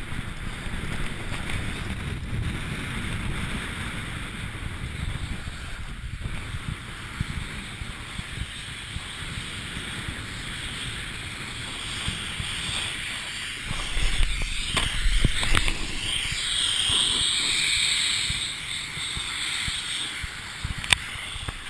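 Wind buffeting the microphone of a moving camera, over the hiss of skis sliding on snow. It grows louder and harsher about two-thirds of the way through.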